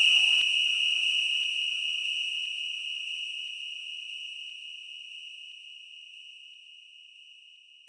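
A single steady, high-pitched electronic tone with fainter overtones above it, fading slowly and evenly over several seconds until it is nearly gone, as the tail of a DJ drop effect.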